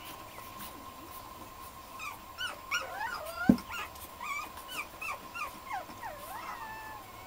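Black & Tan Griffon puppies whimpering and yelping in a quick string of short, high, squeaky calls, with one sharp knock about halfway through.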